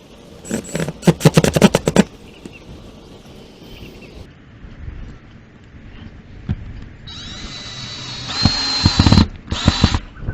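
Power drill driving a screw to fasten a strap: a rapid run of sharp clicks near the start, then the drill motor whining steadily for about two seconds late on and once more briefly just before the end.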